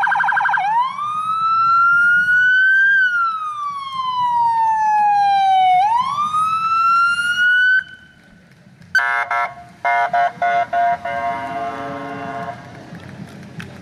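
Police car electronic siren: a quick warble, then a slow wail that rises, falls and rises again before cutting off about eight seconds in. A string of short horn blasts follows.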